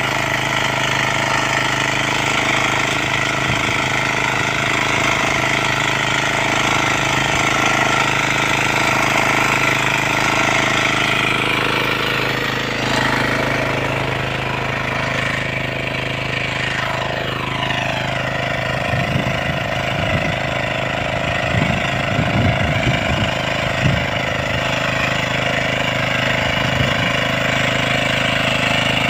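A 10 hp power weeder's engine runs steadily while its ridger attachment pulls through the soil between okra rows. About halfway through the pitch of the engine shifts and briefly falls away. Irregular low thumps sound in the second half.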